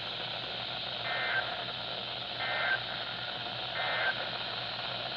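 Three short EAS end-of-message data bursts (the two-tone SAME digital code, 'NNNN'), each about a third of a second long and about a second and a third apart, over a steady radio hiss. They mark the end of the flash flood warning broadcast.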